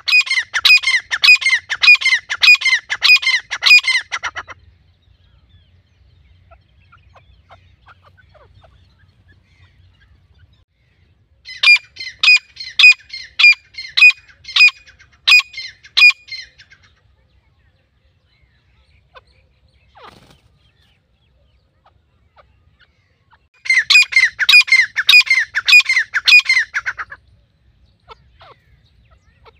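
Grey francolin (teetar) calling: three bouts of rapid, repeated harsh call notes, each a few seconds long, spaced about ten seconds apart.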